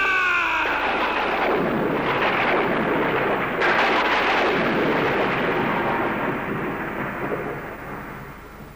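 A shrill cry falling in pitch dies away, giving way to a long rolling rumble of thunder with a second crash about three and a half seconds in. The thunder fades out over the last few seconds, as in a dramatic title sequence.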